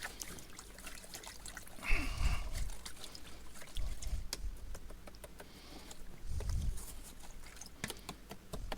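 Objects being handled and set down on a work surface: scattered light clicks and taps, with three dull thumps spread through.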